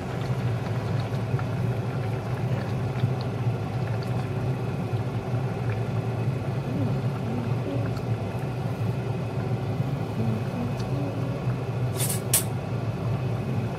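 Large pot of soup boiling on a stovetop, with a steady low hum. Two short sharp clinks come near the end.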